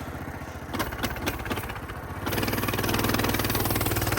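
Mini bike's small engine idling, with a few clicks and knocks about a second in, then opening up a little over two seconds in and running steadily louder as the bike sets off.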